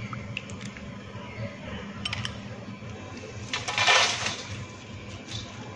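A metal spoon clinks lightly a few times against a ceramic bowl. About three and a half seconds in, a louder, brief rustle and scrape follows as fresh pennywort leaves are handled in a stainless steel bowl.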